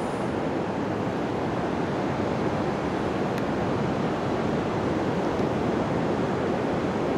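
Ocean surf washing on a sandy beach, with wind, as one steady noise.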